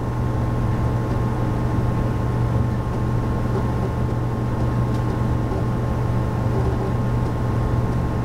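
A 5.25-inch floppy drive in a Compaq Portable III spinning and reading a DOS startup disk as the machine boots, giving a steady low hum.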